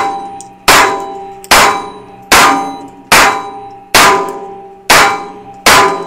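Luvo LA-22 semi-automatic .22 LR rifle firing a steady string of shots, about one every 0.8 seconds. Each crack is followed by a short metallic ring.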